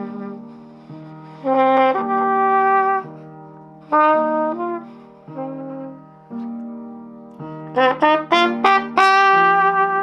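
A brass instrument improvising: held notes that swell and fade, with a quick run of short notes about eight seconds in, over lower sustained notes.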